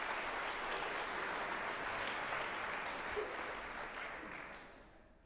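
Audience applauding in a concert hall, the clapping dying away about four to five seconds in.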